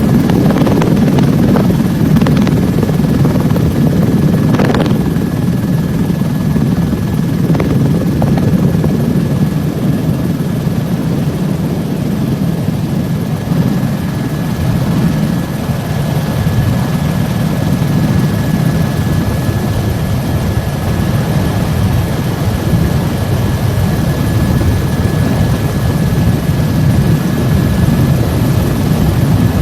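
Helicopter running steadily overhead: a continuous rotor rumble with a fast flutter and a constant high whine.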